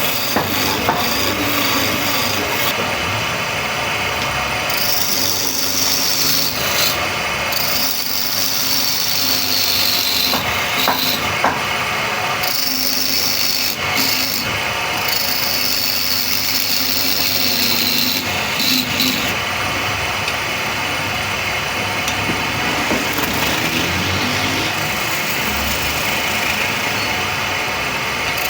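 Wood lathe running while a cutting tool scrapes into the spinning wood: a continuous rasping cut over a steady motor hum, its high edge coming and going as the tool is worked.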